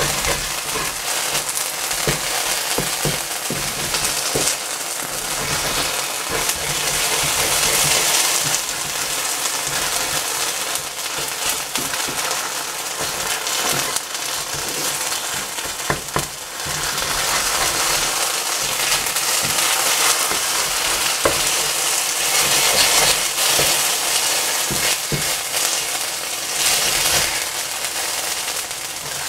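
Food frying in a hot pan: a steady sizzling hiss dotted with many small pops.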